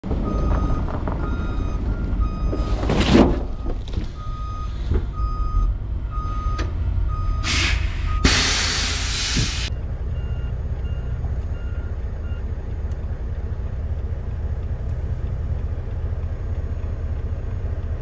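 Truck's reverse alarm beeping steadily over a low engine rumble, with a short air hiss about three seconds in and a longer, louder air-brake hiss at about eight seconds. Fainter, higher-pitched beeping follows briefly about ten seconds in.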